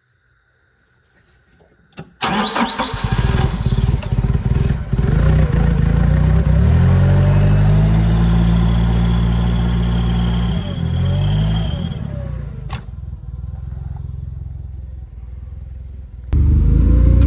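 Propane-fuelled Clark forklift engine starting about two seconds in. It is then revved up by hand at the carburettor linkage, held at a steady higher speed and let fall back to a lower idle. It runs louder again near the end.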